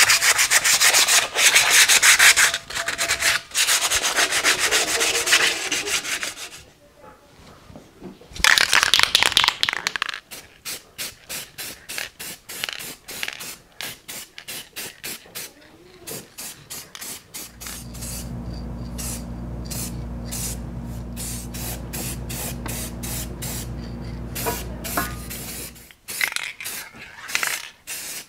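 Hand sanding of the cast-iron base of a 1930s Craftsman bandsaw: rapid back-and-forth rubbing for about six seconds, a short pause, then a couple more seconds of rubbing. After that comes a long run of short clicks and rattles, with a steady low hum through the middle stretch.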